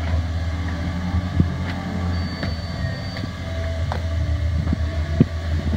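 Engine running steadily with a low hum, with a few sharp knocks of handling on top.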